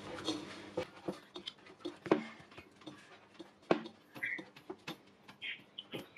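Hands kneading soft yeast dough in a bowl: irregular soft slaps and knocks of the dough pressed and turned against the bowl, with a few louder thuds.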